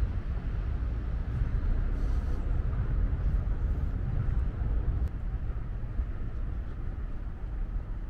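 Steady low rumble of a vehicle in motion, with an even hiss over it.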